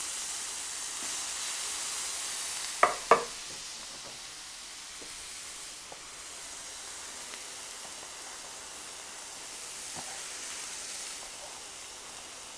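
Thin-sliced carne asada strips sizzling steadily in oil on a hot, seasoned griddle. Two sharp clacks break in about three seconds in.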